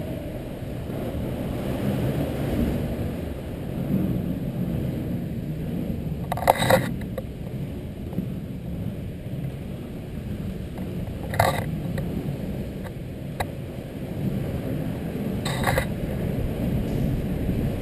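Inline skate wheels rolling down a smooth concrete ramp: a steady low rumble, broken three times by a short sharp click or knock a few seconds apart.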